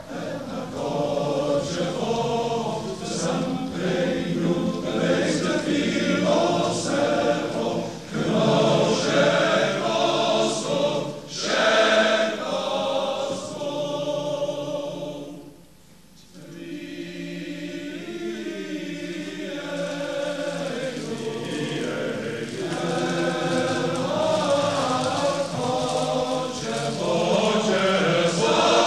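Male voice choir singing in full chorus, with a brief break between phrases about halfway through.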